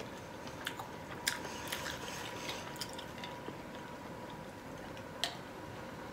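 Quiet chewing with small, scattered mouth clicks, then soft sips from a glass of soda over ice, with one sharper click near the end. A faint steady hum runs underneath.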